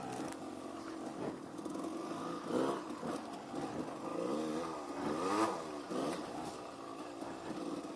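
Dirt bike engine revving up and down while riding a trail, its pitch rising and falling several times, loudest about two and a half seconds in and again around five seconds.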